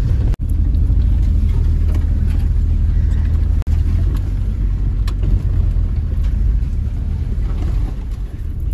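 Maruti 800 car driving slowly over rough, grassy off-road ground, heard from inside the cabin as a steady low engine and road rumble. The sound dips out for an instant twice, just after the start and a few seconds in.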